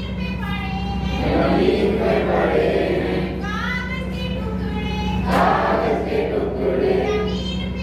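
A group of adults singing together in a room, an action song done with hand gestures, over a steady low hum.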